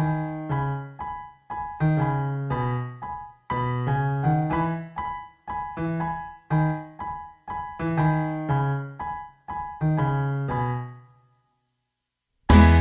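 Background piano music: single notes and chords, each struck and then fading. The piano stops about eleven seconds in. After a moment of silence, a louder, fuller music track starts near the end.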